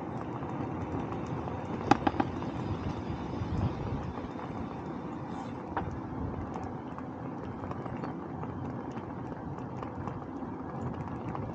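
Steady wind and road rumble while riding a bicycle, with a few sharp clicks about two seconds in and another near six seconds.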